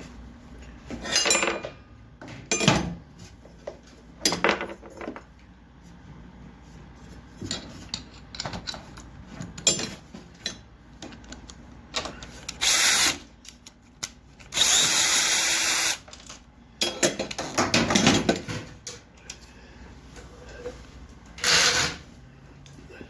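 Electric power drill or screwdriver run in short bursts, about eight times, each lasting a second or so, with the longest steady run about two-thirds of the way in. Small knocks and handling sounds come between the bursts.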